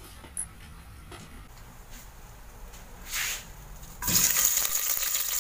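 Sliced onion rings dropped into hot oil in an aluminium pressure cooker, setting off a sudden loud sizzle about four seconds in that keeps going; before that only a faint low hum.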